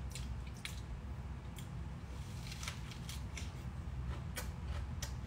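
Close-up chewing and biting into a burger wrapped in iceberg lettuce: irregular crisp crunches of the lettuce over a low steady hum.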